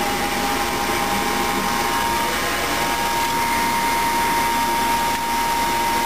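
Rheem Criterion II natural-gas furnace running early in its heating cycle, a steady motor hum with rushing air. A new steady whine joins about two seconds in.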